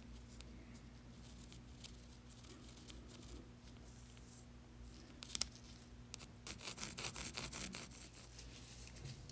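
Faint scratching of a pencil point drawn over the cast-iron body of a bench vise, marking out the border of its worn raised logo. There is a sharper click about five seconds in, then a quicker run of scratching near the end, over a steady low hum.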